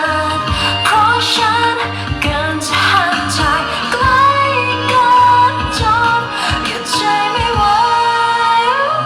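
T-pop song with a female voice singing over a beat with heavy bass and drums. The bass and drums drop back near the end, leaving the voice and sustained keyboard notes.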